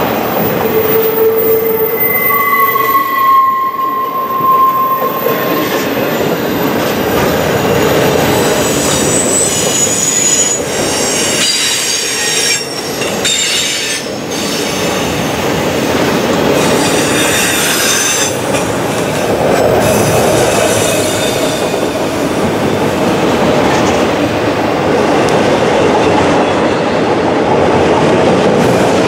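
Freight cars (flatcars, then autorack cars) rolling past with a steady rumble and clatter of steel wheels on rail. Several brief high-pitched wheel squeals are heard in the first few seconds and twice more later.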